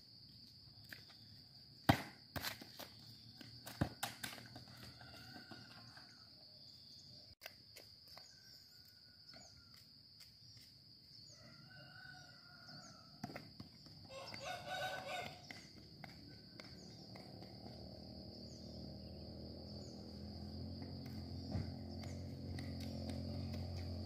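A ball knocks twice on concrete, then roosters crow three times, the last crow the loudest, over a steady high insect buzz. A low rumble builds up during the last few seconds.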